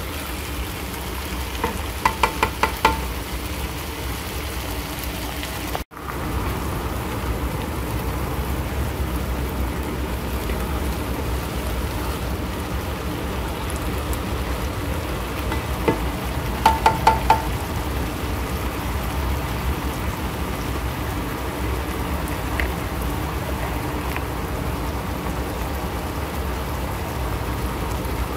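Mixed vegetables sizzling steadily as they fry in a skillet. A spatula knocks against the pan in a quick run of clicks about two seconds in, and again a little past the middle.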